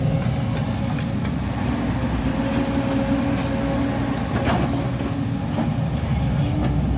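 Excavator's diesel engine running steadily, a low rumble with an even hum that holds its pitch.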